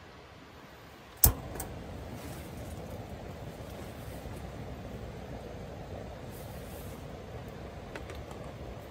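A portable gas stove's igniter clicks once about a second in, and the burner lights and then burns with a steady rushing noise under a foil tray.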